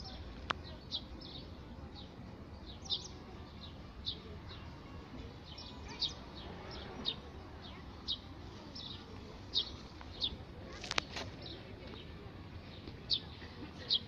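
A bird chirping over and over: short, high, falling chirps about once or twice a second. Two sharp clicks break in, one just after the start and a louder one about three-quarters of the way through.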